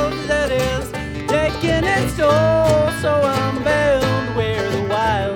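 Bluegrass band playing: guitar, banjo, mandolin and bass, with a lead vocal singing held, bending notes over the picking.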